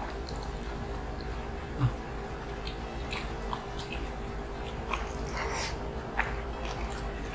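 Close-miked eating sounds: chewing of pork and rice with small wet mouth clicks and smacks, and a soft knock about two seconds in.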